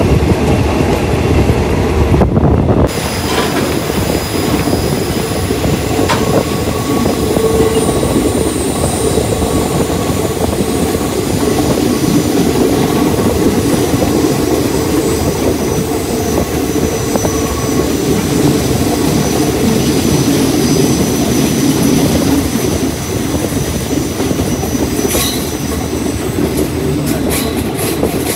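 Passenger train running on the rails: a steady rumble of wheels on track with thin high squealing tones from the wheels over it, and a few sharp clicks near the end.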